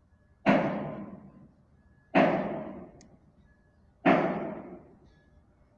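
Three heavy thuds about two seconds apart, each starting suddenly and dying away over about a second.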